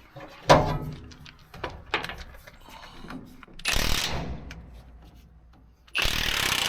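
A sharp metal clank, scattered knocks and a short rattling burst, then near the end a loud steady hammering of an impact wrench on a truck frame-rail bolt.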